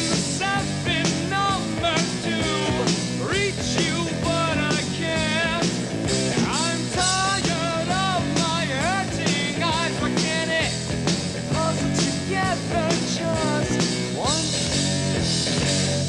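Rock band playing electric guitars and drums, with a steady wash of cymbals and a lead line of bending, wavering notes over the top.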